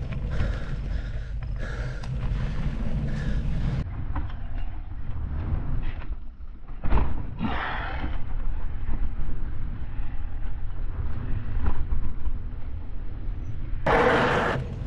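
Wind buffeting the bike-mounted camera's microphone as a mountain bike rolls fast down a dirt singletrack, with knobby tyres and the bike rattling over the trail. There is a sharp knock about seven seconds in.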